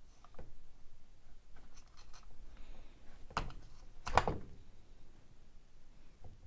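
Hands handling the opened plastic housing of a cordless chainsaw while working the oil hoses off its oil pump: light rubbing and scraping with small clicks, and two louder knocks a little past the middle, the second the loudest.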